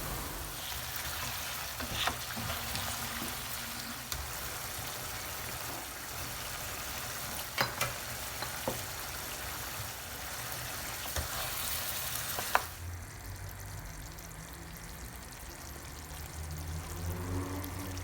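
Lamb liver frying in a pan, a steady sizzle with a few sharp clicks of a utensil against the pan. The sizzle drops away suddenly about thirteen seconds in, leaving a fainter sound.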